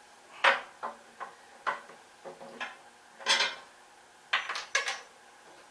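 A run of short metal clinks and taps, about ten in five seconds and irregularly spaced, from washers, bolts and hand tools being handled while a machine is bolted to its dolly.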